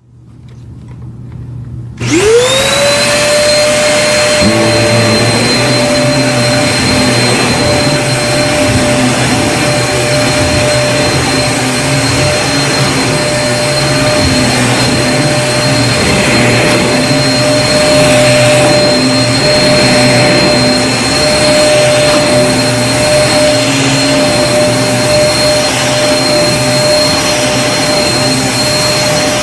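Vacuum cleaner switched on about two seconds in, after a faint rising hum. Its motor whine sweeps up to speed, then runs steadily with a high whistle over the rush of air.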